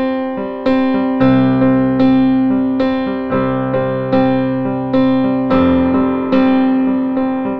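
Background music: a soft piano plays slow chords, with a new note struck about every half second to second and left to fade.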